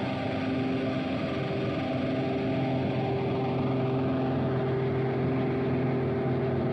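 Steady droning synthesizer chord opening a rock song, holding the same low sustained notes without a beat.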